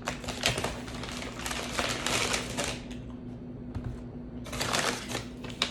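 Paper rustling and crinkling in handling, in two spells with a short lull between them and a sharp click near the end.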